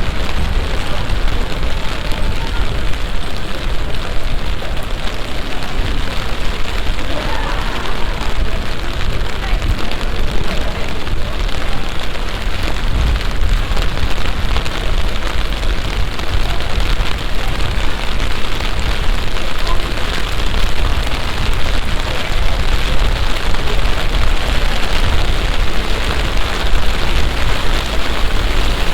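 Heavy rain from a sudden summer shower, pouring steadily as a dense, even hiss.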